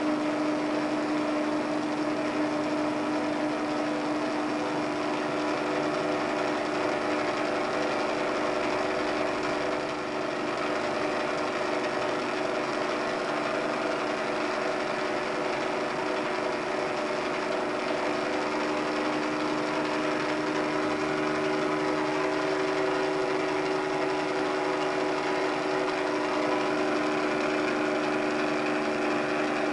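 Helicopter in flight, heard from on board: a steady engine and rotor drone, an even hum with a higher whine over a rushing noise.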